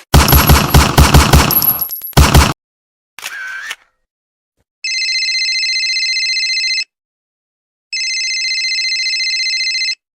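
A sequence of stock sound effects: a rapid burst of automatic gunfire lasting about two and a half seconds, a short electronic blip, then two long trilling rings of a telephone ringtone, each about two seconds, with a pause between them.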